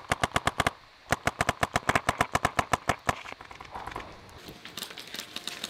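Etek 5 electronic paintball marker firing rapid strings of shots, about ten a second: a short burst, a brief pause, then a longer two-second string, followed by a few scattered shots.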